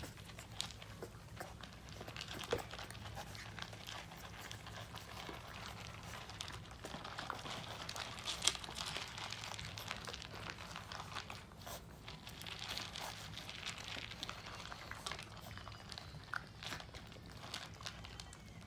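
A litter of boxer puppies eating dry kibble together: steady crunching and chewing, dense with small crisp clicks.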